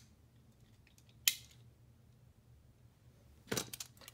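Sharp clicks of hard plastic as burst Beyblade tops and their loose pieces are picked out of a plastic Beyblade stadium: one loud click about a second in, then a few quicker clicks near the end.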